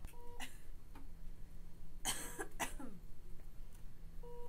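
A person coughing twice in quick succession about two seconds in, as after a breathing tube. A patient monitor gives a short beep near the start and again near the end.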